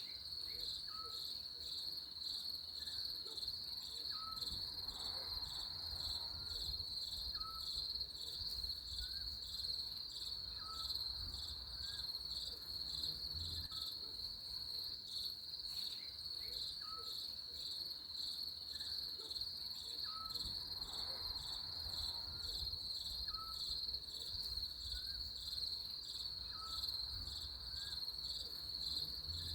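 Crickets chirping in a steady, fast-pulsing high trill. A faint short rising call repeats about once every second or so underneath, over a low background rumble.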